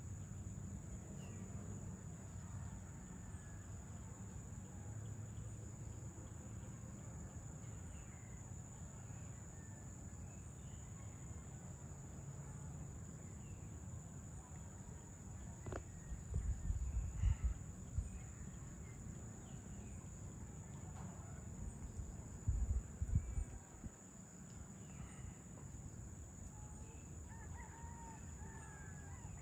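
Rural evening ambience: a steady high-pitched drone of crickets and other insects with scattered bird calls, and a rooster crowing near the end. About halfway through, two short gusts of wind buffet the microphone with a low rumble, the loudest sounds here.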